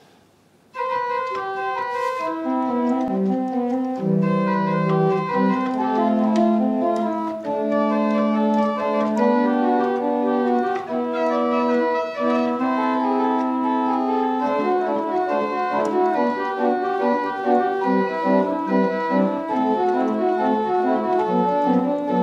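Church pipe organ playing, starting about a second in, with held chords and a moving lower part.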